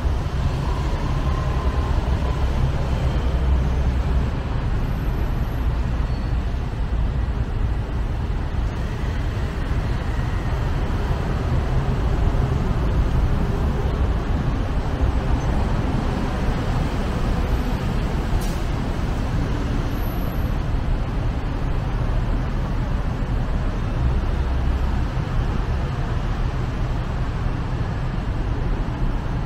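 Steady city road traffic from a busy intersection below: cars and motorbikes running, heard as a continuous low rumble.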